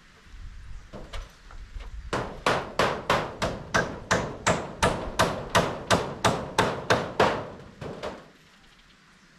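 Hammer nailing into a wooden roof frame: a few light taps, then a steady run of sharp blows at about three a second, and two last blows near the end.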